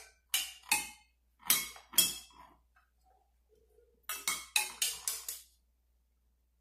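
A water-glass xylophone: tall clear cups holding different amounts of coloured water, struck one after another with a stick so that each rings at its own pitch, set by how much water it holds. Four spaced strikes come first, then after a pause a quick run of about seven strikes across the row.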